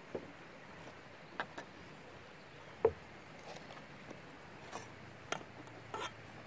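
Camp cooking gear being handled: about half a dozen scattered light knocks and clinks, a few with a brief metallic ring.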